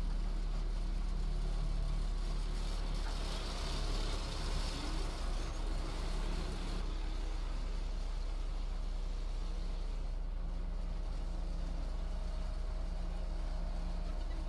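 Heavy diesel engine of earthmoving machinery running steadily, with a stretch of noisier, higher sound from about three to seven seconds in.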